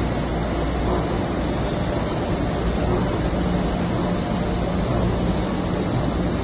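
TPE carpet back coating machine running: a steady mechanical din with a low hum, the carpet web feeding over its steel rollers.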